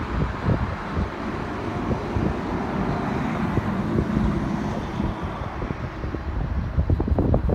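Distant steady rumble of an Emirates Airbus A380's four jet engines, mixed with wind buffeting the microphone in irregular gusts that grow heavier near the end.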